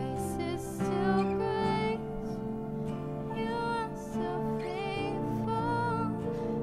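Slow worship song played live: a woman sings with vibrato over an acoustic guitar and a Yamaha MX88 stage keyboard.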